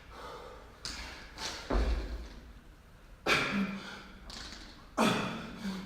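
Several dull thuds on a gym floor during a timed workout, the loudest and deepest about two seconds in, others about one, three and five seconds in.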